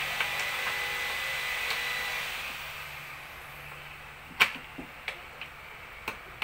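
Plastic toy building bricks clicking as they are pressed together and knocked on the table: about six sharp clicks in the second half, the first the loudest. A steady background hum fades out over the first few seconds.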